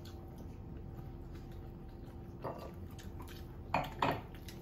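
Fried chicken being eaten and handled at a dinner table: low room noise with light clicks of food and tableware, then short louder handling or crunching noises about two and a half seconds in and twice near the end.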